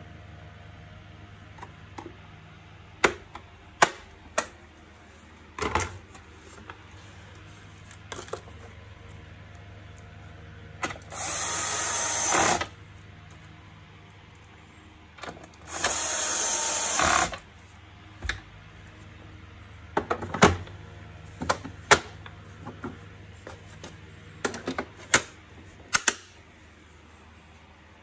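Bosch cordless drill-driver running twice, about a second and a half each time, driving screws into the vacuum cleaner's plastic housing. Sharp clicks and knocks of plastic parts being handled and fitted come before and after.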